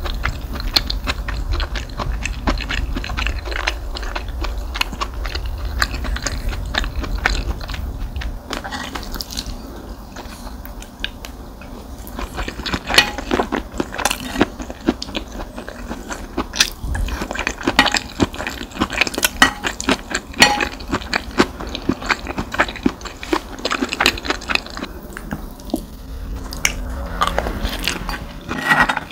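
Close-miked eating sounds: fried rice being chewed, with many small sticky clicks and crunches at an irregular pace.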